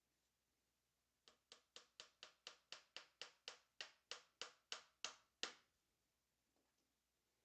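Claw hammer tapping a small tack nail into a wooden canvas stretcher frame through fabric: a quick run of about sixteen light taps, roughly four a second, growing louder.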